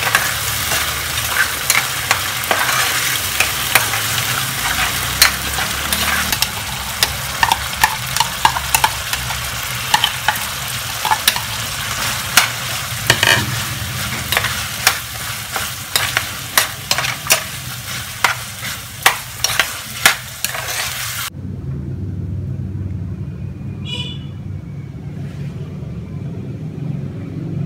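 Meat, onions and diced potatoes and carrots sizzling in a stainless steel pan while a spatula stirs them, with frequent sharp clicks and scrapes of the spatula against the pan. About 21 seconds in, the sizzling and scraping stop abruptly, leaving a low hum.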